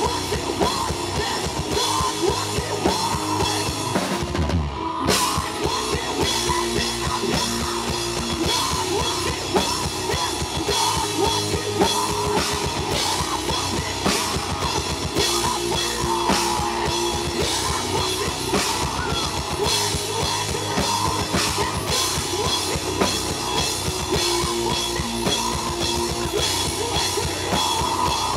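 Heavy metal band playing live: distorted electric guitar, bass and busy drum kit, with a short break about four seconds in.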